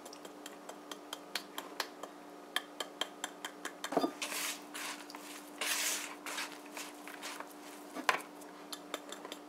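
Flour tipped from a glass measuring cup into a plastic bowl, with a string of light clicks and taps. Then a hand mixes and rubs the flour into grated cassava, giving short soft scraping rushes and small knocks against the bowl, with a duller knock about four seconds in.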